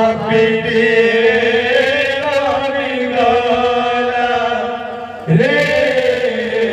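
Men singing a kirtan devotional chant in long held notes; one phrase fades and a new, louder phrase begins about five seconds in.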